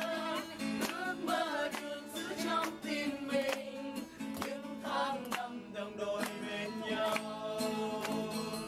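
A song playing with singing over a steady beat.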